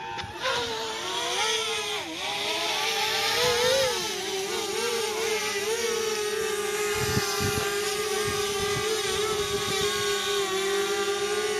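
DJI Spark's propellers and motors whining close by in gusty high wind: the pitch wavers up and down for the first few seconds as the motors correct, then settles to a steady tone.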